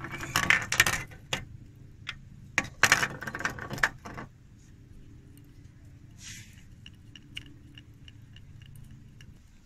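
Wooden hand reel and small fishing gear being handled, with clattering and rustling in two bursts during the first four seconds. After that come faint, light ticks as fishing line is wound onto the reel.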